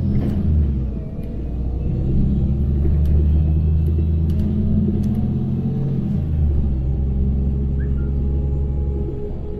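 LiAZ-5292.65 city bus engine running and the bus driving, a deep steady drone heard from inside the passenger cabin. The drone dips briefly about a second in and changes pitch again around six seconds in, with a few faint rattles.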